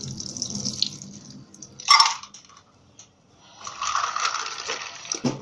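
Water sloshing and splashing in a container of ice water, with one sharp splash about two seconds in and a longer spell of splashing near the end.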